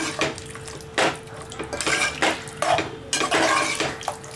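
A metal spoon stirring a thick mutton paya curry in a cooking pot, scraping and clinking against the pot several times in an uneven rhythm.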